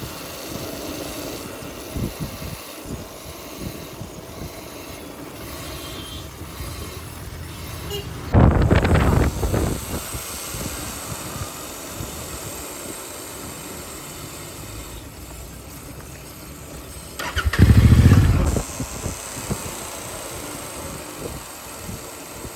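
Royal Enfield Continental GT650 rear brake making a loud juddering, catching noise twice, each time for a second or so, as the bike rolls with its engine switched off. It is a hitching sound under braking whose cause the rider does not know.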